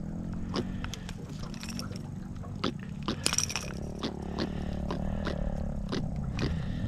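Irregular sharp clicks and taps of metal fish-grip pliers and pliers against a popper lure's hooks while a caught fish is unhooked, over a steady low rumble.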